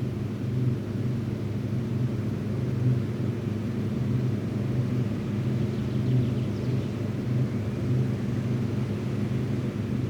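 Diesel engine of heavy farm harvest machinery running steadily under load, a continuous low drone.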